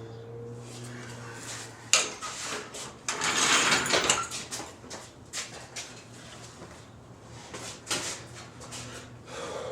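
Wood shims and steel jack stands knocked and clattered into place under a truck frame: separate knocks, with a loud scraping rush about three seconds in, over a steady low hum.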